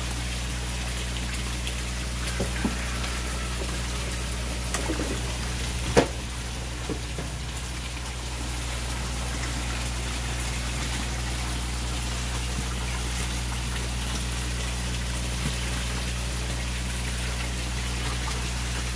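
Water pouring from a pipe into a koi pond, splashing steadily over a steady low hum. A single sharp knock sounds about six seconds in.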